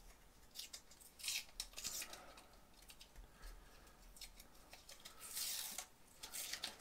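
Protective film being peeled off a small acrylic install template: crackling, rasping peels and small plastic clicks in the hands, with a longer peel about five seconds in.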